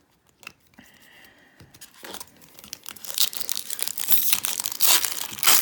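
Baseball card pack wrapper being torn open and crinkled by hand. It starts faintly about two seconds in and grows loud and crackly over the last few seconds.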